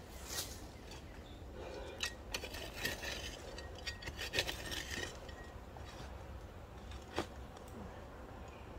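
Eating utensil scraping and clinking against a metal food container: soft scrapes with scattered light taps, one of which rings briefly about three seconds in.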